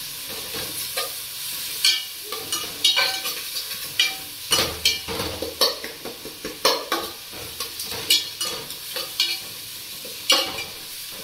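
A metal spoon stirring and scraping a tomato-onion masala frying in oil in a metal pot, with irregular clinks and scrapes against the pot over a steady sizzle.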